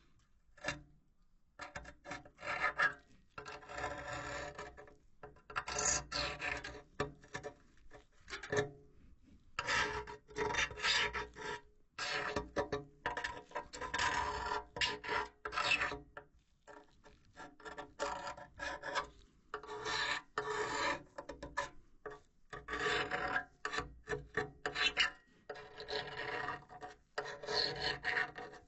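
A metal pick scraping and rubbing along the metal cells of a Carrier 59TP6 furnace's removed heat exchanger, in repeated strokes of a second or two with short pauses between them. The pick is probing for corrosion holes, and in places it drops through where the metal has rusted out.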